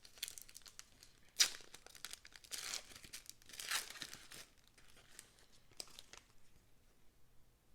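Trading-card pack wrapper crinkling and being torn open by hand in several short bursts, the sharpest about a second and a half in, followed by quieter handling.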